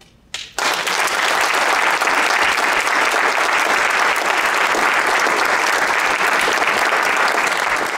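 A small audience clapping, breaking out about half a second in and holding steady, easing off near the end.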